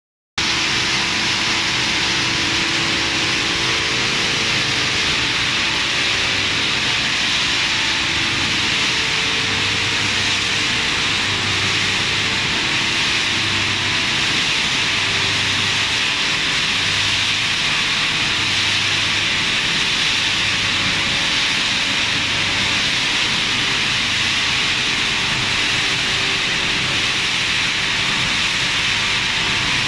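Plastic recycling washing line running: steady hissing machinery noise, with a low hum that pulses about every one and a half seconds through the middle.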